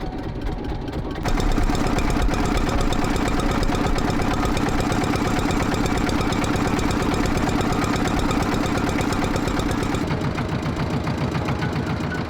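A small engine running with a fast, even pulse. It gets louder about a second in and its tone shifts near the end.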